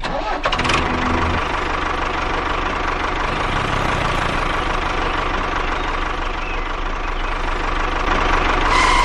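A small motor running steadily with a constant whine, starting just after the beginning.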